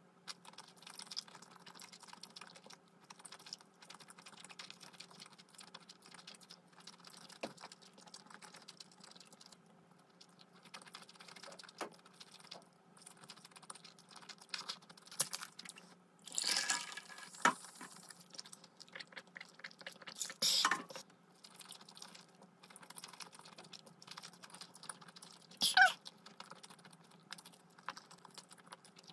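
Close-miked eating sounds of spicy black-bean noodles: small wet chewing clicks and soft slurps throughout, with a few louder, noisier slurps, the loudest near the end.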